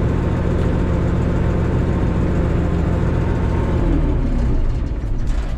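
Minneapolis-Moline A4T 1600 tractor engine running at a steady speed, then throttled back about four seconds in, its pitch falling as it slows.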